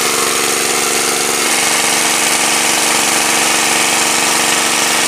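Small petrol engine of a portable water pump running steadily while it pumps the ditch dry, its note shifting slightly about a second and a half in. Rain falls over it as a steady hiss.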